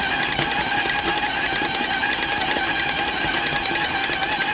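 KitchenAid stand mixer running steadily, its paddle beating thick peanut butter cookie dough in a steel bowl: a steady motor and gear hum of several tones with a fast, even ticking over it.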